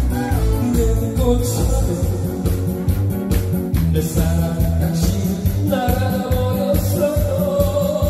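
A man singing a Korean trot song into a microphone over a backing track with a steady bass beat.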